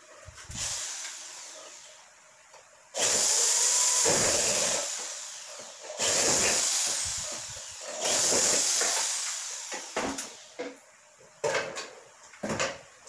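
Corded electric drill run against an aluminum tubular frame in three bursts of about two seconds each, starting abruptly and easing off, then a few light knocks and clicks near the end.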